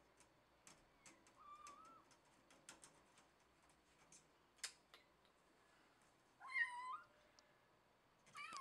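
A domestic cat meowing, quietly at first, about a second and a half in, then louder about six and a half seconds in and again near the end, with scattered sharp clicks in between.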